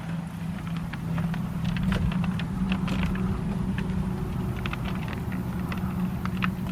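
A steady low engine-like hum, with many light, irregular clicks and taps over it.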